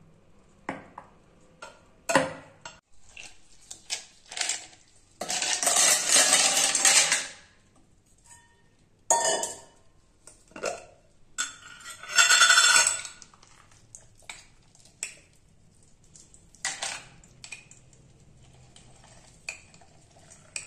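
Kitchen clatter of ice cubes and steel utensils clinking in a stainless-steel mixer-grinder jar, with two longer bursts of clatter about a third and halfway through. Near the end there are lighter clicks as a spoon scrapes thick milk cream out of a glass jar onto the ice.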